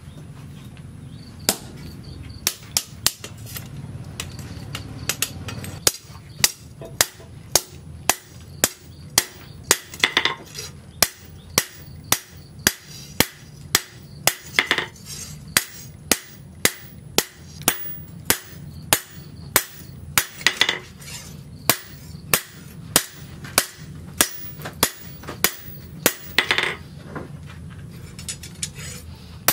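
Hand hammer striking a steel machete blade on a steel post anvil, each blow a sharp ringing clang. The blows come sparsely at first, then settle into a steady rhythm of about two a second.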